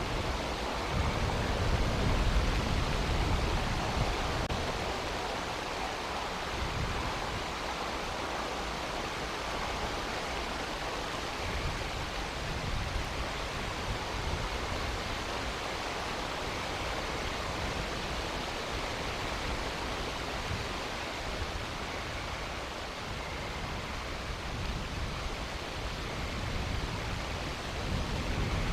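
Steady hiss of rain and wind during a thunderstorm, picked up by an outdoor nest-camera microphone, with stronger low rumbling in the first few seconds and again near the end.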